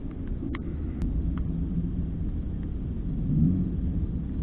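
Light clicks of a fishing rod, spinning reel and tackle being handled, several in the first second and a half, over a steady low rumble.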